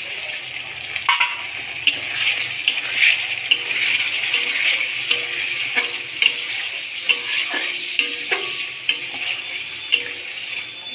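Fried onions and whole spices sizzling in ghee and oil as yogurt is stirred in, with a steady hiss and a spatula clicking against the pan over and over.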